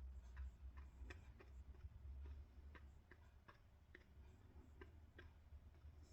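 Faint light clicks and taps at an uneven pace, about two a second, over a low steady hum.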